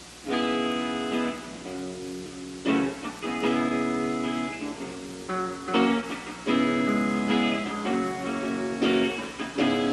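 Guitar chords strummed and left to ring, a fresh chord struck every second or two, starting about a third of a second in over a steady tape hiss.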